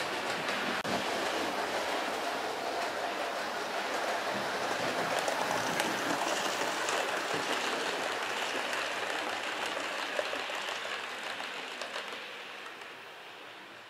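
00-gauge model trains running on the layout's track: a steady whirring hiss of wheels and motors with light clicking, louder in the middle and fading away near the end.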